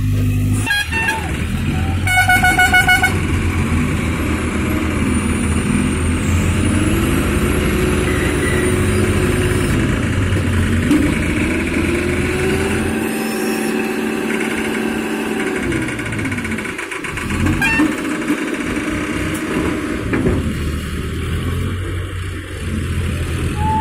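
Diesel engines of mobile cranes running and revving as they lift a steel boat, their pitch rising and falling slowly as they take the load. A horn sounds for about a second, about two seconds in.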